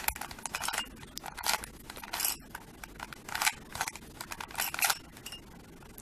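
Plastic 3x3 Rubik's cube being turned by hand: its layers click and scrape in about six short bursts, one quick turn after another.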